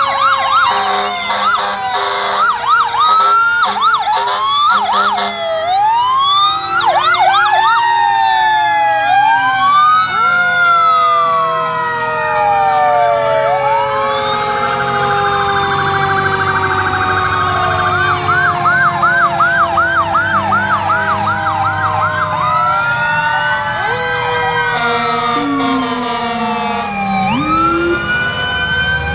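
Several fire engine sirens sounding at once as the trucks pass: fast yelping warbles and slow rising-and-falling wails over long, slowly falling tones.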